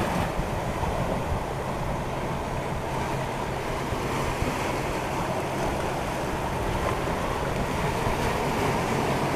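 Ocean surf washing and foaming over rocky shore ledges close by, a steady rush of broken water, with wind buffeting the microphone.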